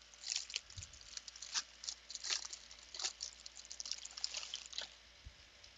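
Thin plastic bag crinkling in quick, irregular rustles as it is handled and opened, stopping about five seconds in.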